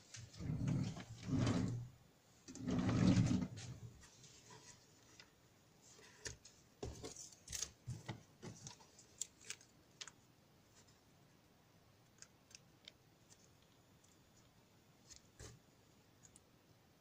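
Close handling noise: two short rustling bursts in the first few seconds, then a scatter of small clicks and taps that thin out toward the end, from small electronic parts and alligator-clip leads being moved on the desk.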